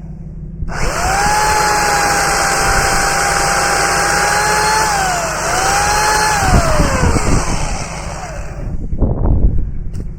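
Chainsaw cutting through tree roots down in the dirt, which dulls the chain. It comes up to full speed under a second in, dips briefly near the middle, then winds down and stops near the end, over a steady low engine rumble.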